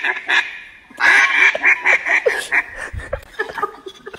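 Mallard-style duck call blown in fast runs of quacks, about five a second, pausing briefly before a second run about a second in. It comes through a laptop's speaker over a video call.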